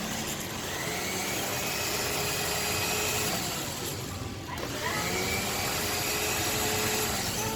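Drilling machine motor running with a steady whine, dropping out briefly about four seconds in and then spinning back up with a rising pitch.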